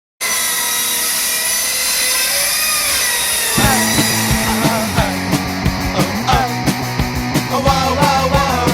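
A chainsaw engine running at a steady high rev, its pitch wavering slightly. About three and a half seconds in, a fast punk rock band comes in over it with drums, bass and electric guitars.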